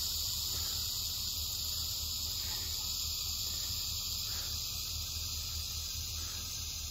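Aerosol wasp spray hissing steadily as its jet stream is sprayed under a shed's floorboards, the can nearly empty.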